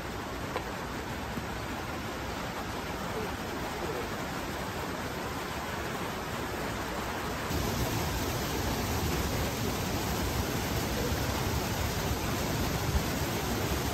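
Shallow river running over a small weir: a steady rush of water that steps up louder about halfway through.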